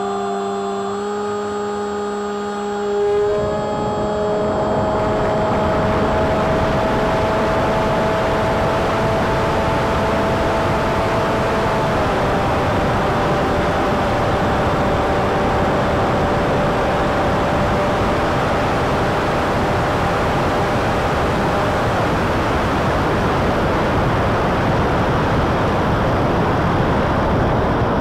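Emax 2207 1900kv brushless motor spinning a 7x6 folding prop, its whine stepping up in pitch, then about three seconds in a loud rush of air over the onboard camera takes over as the flying wing flies, with the motor whine faint beneath it.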